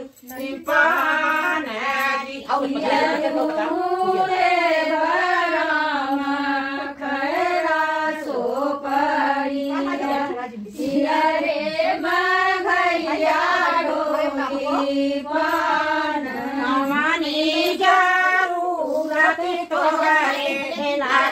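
Women singing a traditional Hindi wedding folk song (shaadi ke geet) together in a small room.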